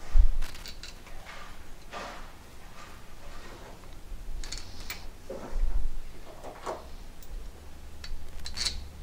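Hands working on a metal pump head as its bolts are set in: a dull thump just after the start, then scattered light metallic clicks, knocks and rubbing of parts being handled.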